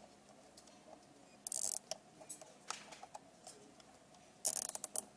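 A plastic zip tie being pulled tight through its ratchet head: two short zipping rasps, about a second and a half in and again near the end, with small handling clicks between.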